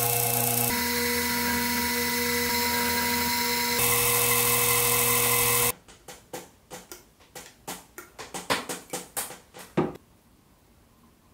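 Small milling machine's spindle running steadily while a drill bit cuts into an aluminium part, its sound changing twice; it stops about six seconds in. A run of short puffs from a compressed-air blow gun follows, coming faster toward the end and stopping about ten seconds in.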